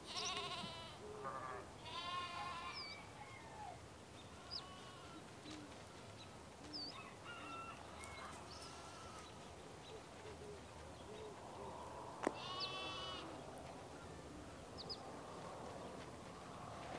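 Livestock bleating, several wavering calls: a few near the start and one more about twelve seconds in. Faint short high chirps come in between.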